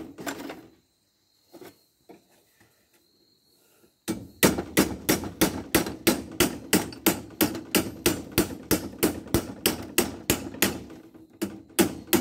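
Hand hammer beating on a metal pipe clamped in a bench vise, a steady run of sharp metal-on-metal blows about three a second, starting about four seconds in: the pipe is being hammered to bend it.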